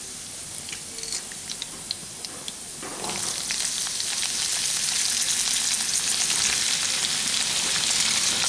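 Garlic, fenugreek seeds and dried chillies crackling gently in hot mustard oil in a kadai, with scattered small pops. About three seconds in, raw potato sticks go into the oil and it breaks into a louder, steady sizzle.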